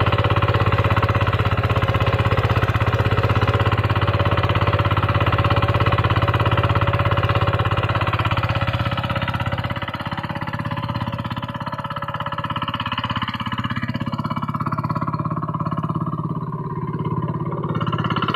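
Single-cylinder diesel engine of a two-wheel hand tractor running steadily under load while ploughing, with a rapid, even firing beat. It gets a little quieter and changes tone about halfway through.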